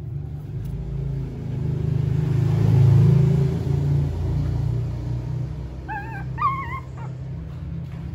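A newborn puppy whimpering twice, short wavering squeaks about six seconds in. Before that, a low rumble close to the microphone, loudest about three seconds in, as the adult dog pushes its nose up against the phone.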